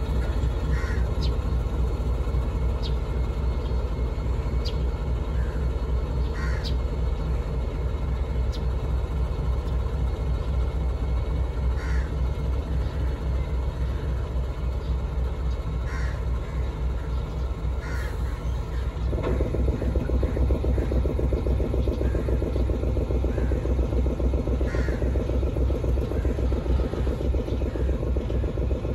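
KTMB Class 26 diesel locomotive running with a steady low rumble as it hauls flatbed wagons away, with crows cawing every couple of seconds. About two-thirds through, the rumble grows louder and fuller, with a rhythmic beat.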